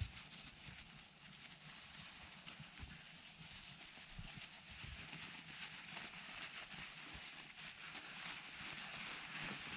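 Faint, irregular crunching and clicking of ice-crusted snow and frozen camp gear being handled.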